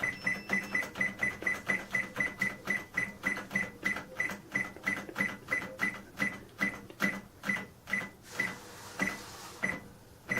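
Casio SE-S3000 cash register keypad beeping with each press of the 7 key, a short high beep with a key click about three times a second, repeated dozens of times, spacing out a little near the end. The key is being pressed over and over to step through the character codes to the £ symbol.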